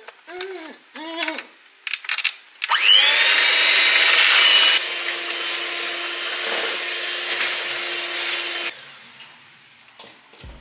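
Electric kitchen mixer switching on, its motor whine sliding up in pitch as it spins up. It runs steadily for about six seconds, beating eggs and sugar, a little quieter after the first two seconds, then switches off.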